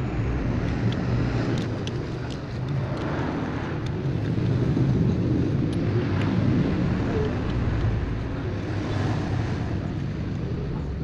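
A steady low rumble runs throughout. A few faint metallic clicks in the first few seconds come from a socket wrench being worked on a truck's wheel nuts.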